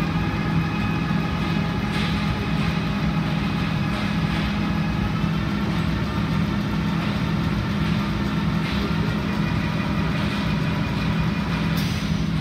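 Packaging machines running: a steady low hum with a faint whine, and a few light clicks, the clearest near the end.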